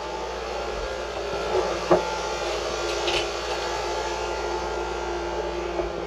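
Mabru SC05DC 12-volt cabin air conditioner running: a steady rush of air from the blower, with a single sharp click about two seconds in.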